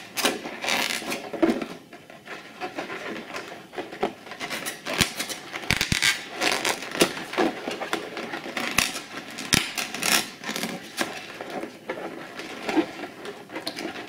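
Hands squeezing and rubbing inflated latex balloons, giving irregular squeaks, rubs and small clicks as the small balloons inside are pushed into place through the latex.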